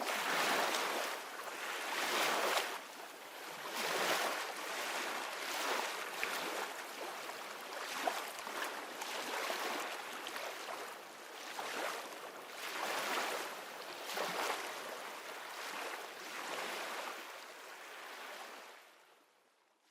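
Ocean waves surging and receding, swelling every couple of seconds, fading out near the end.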